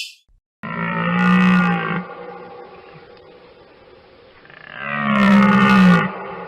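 Bonobo calls: two long, low, pitched calls, each about a second and a half long, with a steady hiss between them.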